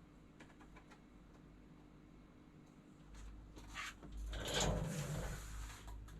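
Handling noise at a work surface: a few faint clicks, then from about halfway a low rumble with louder rustling and knocking as objects are moved and set down.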